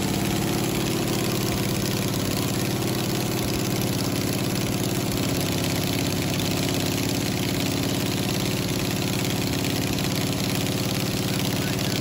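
396 big-block Chevy V8 idling steadily with its valve cover off and the rocker arms working in the open. The engine has a weak number 7 cylinder from a worn number 7 intake lifter and cam lobe; that rocker is not squirting oil consistently.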